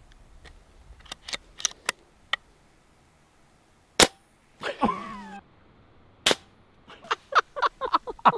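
Two air rifle shots about two seconds apart, each a single sharp crack, with fainter clicks before them and a run of short steps near the end.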